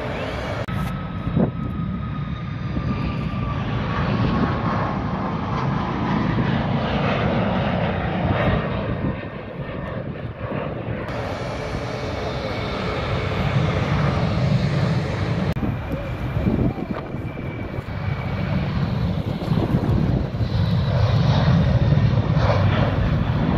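Jet airliner engines at take-off power, heard close to the runway across several cuts: a Boeing 737 MAX with a faint falling whine, a Boeing 737-800 on its take-off roll, then an Airbus A330 climbing out, loudest near the end.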